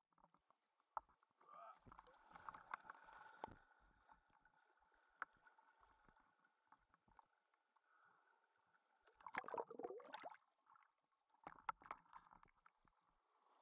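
Faint sloshing and splashing of shallow water around a spearfisher's body and hands, with scattered knocks. Louder bursts of splashing come about two to three seconds in, around nine to ten seconds in, and again near the end.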